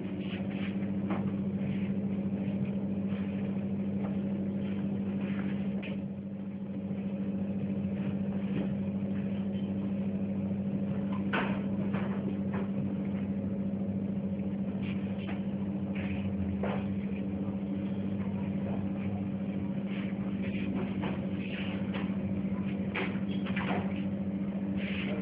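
Ultrasonic plastic-tube sealing machine running: a steady low hum with scattered clicks and knocks from its mechanism, the hum dipping briefly about six seconds in.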